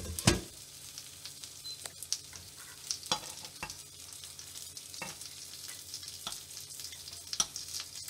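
Cheese gyoza sizzling in a non-stick frying pan, frying in the oil now that the steaming water has evaporated. Over the steady sizzle come about ten sharp clicks and taps of tongs against the pan as the dumplings are lifted out. The loudest knock comes just after the start.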